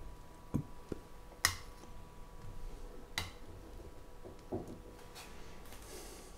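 Metal kitchen tongs clicking and knocking against an enamelled cast-iron casserole and a serving plate as roasted wood pigeons are lifted out: about five light, separate clicks over a quiet background.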